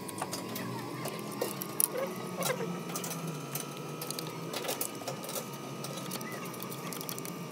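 Scattered metallic clicks and taps of hand tools working on a diesel high-pressure fuel pump, with a steady high tone running underneath.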